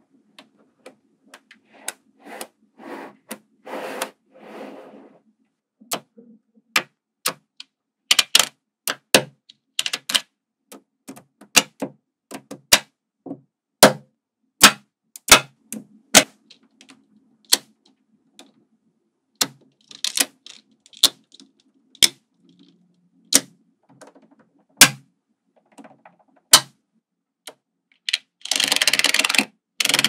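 Small magnetic metal balls clicking and snapping together as magnet-ball tiles are placed and stacked, a sharp click every second or so. Near the end comes a longer, dense rattling clatter of many balls.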